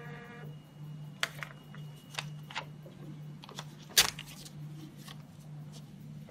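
Scattered sharp clicks and light rattles of handling at a benchtop hematology analyzer, the loudest about four seconds in, over a steady low pulsing hum. A steady whine of several even tones stops about half a second in.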